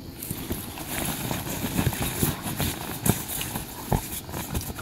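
Irregular thumps and knocks on an inflated vinyl bounce house, with rubbing of the vinyl, as a puppy paws at, mouths and pushes its padded bolster.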